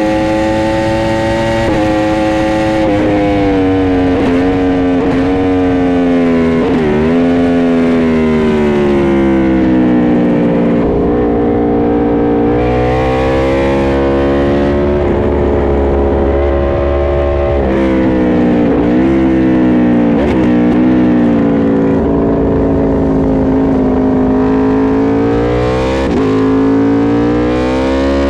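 Aprilia RSV4 RF's V4 engine at track speed, its pitch climbing under hard acceleration and falling at the gear changes. Twice it winds down with quick throttle blips as it shifts down for corners. Wind rumble runs underneath.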